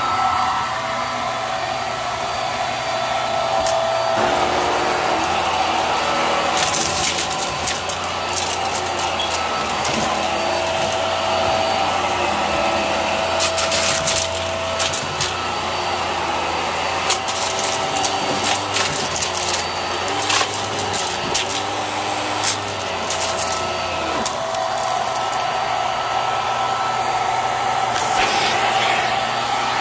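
Hart bagless upright vacuum cleaner running steadily on carpet, with many short clicks and rattles as small balloons are sucked up through it, mostly in the middle stretch.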